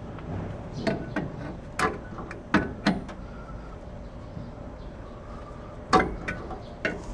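Irregular metallic clinks and knocks of hand tools and shock-absorber mounting parts being handled, about eight in all, some with a brief ringing, the loudest about six seconds in.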